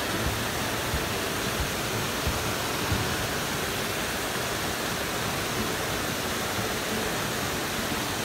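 Shallow creek water running over rocks and riffles: a steady, even rush.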